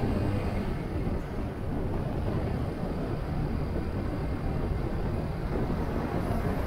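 Motorcycle engine running at a steady cruise, mixed with rushing wind and road noise.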